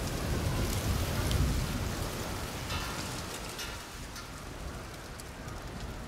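Steady rushing outdoor ambience, like wind and rain, with a low rumble that eases off after about two seconds and a few faint ticks.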